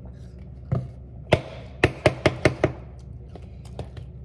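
Metal spoon tapping against a container to knock off a scoop of peanut butter: two single knocks, then five quick taps at about five a second.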